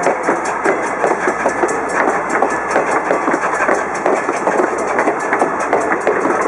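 Steam locomotive running, its exhaust chuffing in a quick, even rhythm.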